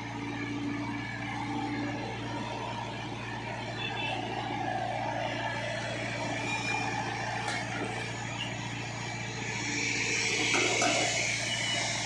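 Tata Hitachi EX70 excavator's diesel engine running steadily under hydraulic load as the boom lifts a full bucket of wet soil and swings it over a tractor trolley. A louder rushing noise swells near the end.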